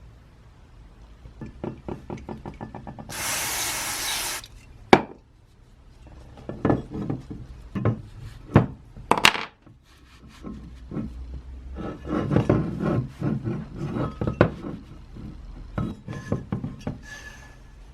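Metal tool parts being handled and worked, with repeated knocks, taps and clinks and several sharp strikes. A short burst of hiss comes about three seconds in.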